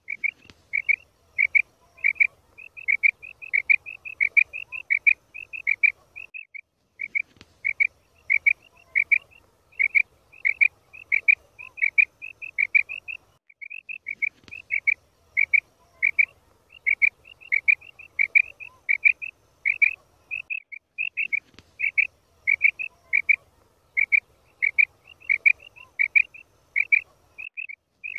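Female common quail calling: a steady run of short, high, quick notes, about two or three a second, a hunter's lure call. The sequence repeats about every seven seconds, with a brief pause each time.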